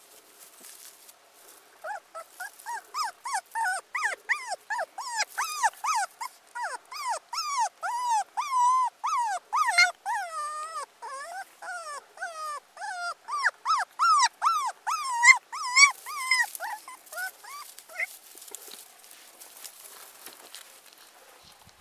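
Very young puppy crying: a fast run of high whimpering cries, each rising and falling in pitch, several a second. The cries start about two seconds in and tail off near the end.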